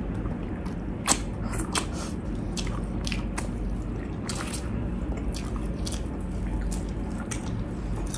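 Close-up wet eating sounds of people chewing and sucking on sauce-covered fried chicken: irregular lip smacks and squishy, sticky clicks, the sharpest about a second in.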